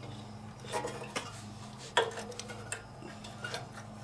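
Small metal clicks and clinks from a carburetor being slid onto a Kohler CV15S engine by hand, with its throttle and choke linkages attached. There are about five clicks, the sharpest about two seconds in with a brief ring, over a faint steady low hum.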